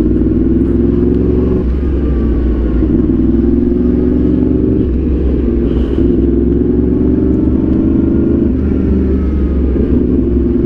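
Yamaha R1 sportbike's inline-four engine running at moderate revs, its pitch rising slowly and dropping back three times.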